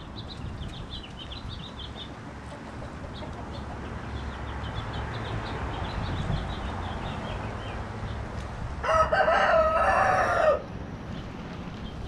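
A rooster crows once, a single call of nearly two seconds, near the end. Before it, small birds chirp over a steady low rumble of wind on the microphone.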